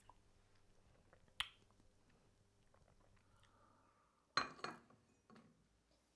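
A nearly quiet small room with faint hum, broken by small sounds of coffee cups being handled and sipped from: a sharp click about a second and a half in, and a louder short noisy sound followed by two smaller ones from about four and a half seconds in.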